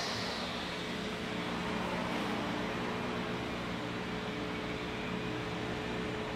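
A steady mechanical hum with a constant low tone over an even background hiss. A higher hiss fades out in the first moment.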